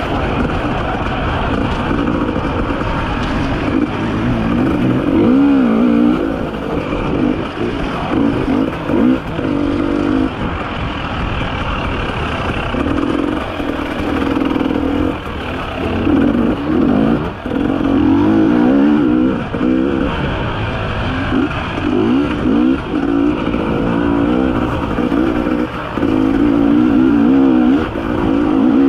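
300 cc two-stroke enduro motorcycle engine ridden on a dirt trail, revving up and falling back over and over as the throttle is worked, heard close up from a helmet camera.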